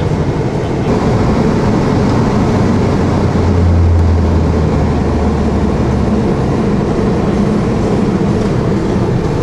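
Road vehicle's engine and road noise heard from inside the cabin while driving, a steady rumble with a low drone that swells for a few seconds in the middle.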